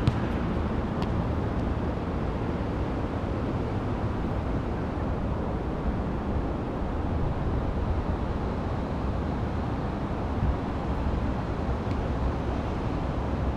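Wind rumbling steadily on the microphone, with a few faint short knocks.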